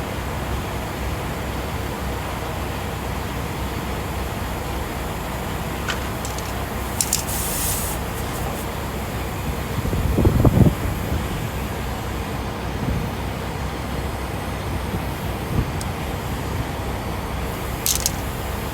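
Steady rumble of truck-stop vehicle traffic, with short hisses of air about seven seconds in and again near the end, and a louder low thump about ten seconds in.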